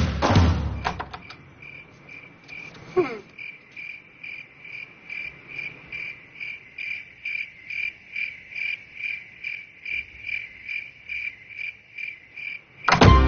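Crickets chirping steadily, about two to three high chirps a second, after drum music cuts off at the start. A short sliding tone sounds about three seconds in, and music comes back in at the very end.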